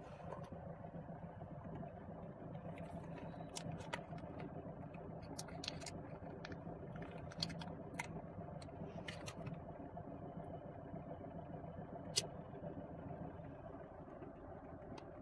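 Lada Niva Legend's 1.7-litre four-cylinder engine idling steadily, with scattered, irregular sharp ticks. The engine has been knocking at 20,000 km and is running in on a freshly added oil additive meant to quieten it.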